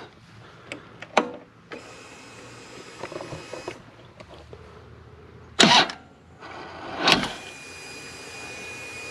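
Harley-Davidson Road King's electric starter cranking the V-twin engine for about two seconds without it firing, on a weak battery. A few seconds later come two loud knocks.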